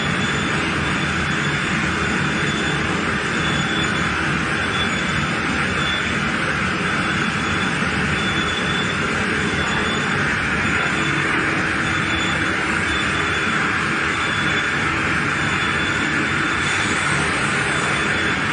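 Frozen-meat processing line with a spiral-groove boiling cooker running: a steady, even machine noise, with a faint high whine that comes and goes.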